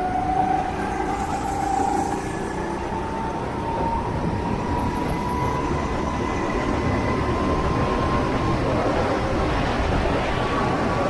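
Go-kart engine running hard, its pitch climbing slowly and steadily as the kart accelerates, over a steady rushing noise.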